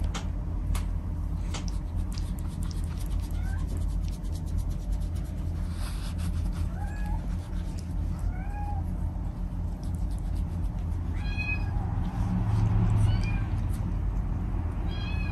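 Tortoiseshell cat purring steadily while its chin is scratched, with a few short, high meows scattered through.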